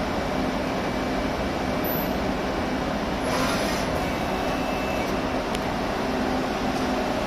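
Okuma ESL10 CNC lathe running, a steady machine hum with a few constant tones and a brief hiss about three seconds in.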